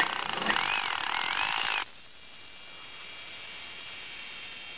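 Rotary hammer drill boring a masonry bit through a concrete block: a loud hammering grind for about the first two seconds, then a quieter, steadier run.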